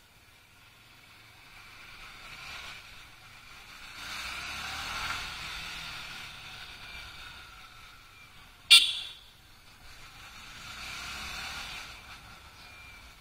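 Yamaha R15 V3's single-cylinder engine running as the bike rides off at low speed, with wind noise. The engine sound swells twice, about four seconds in and again near the end. A short, sharp, loud burst about nine seconds in is the loudest thing.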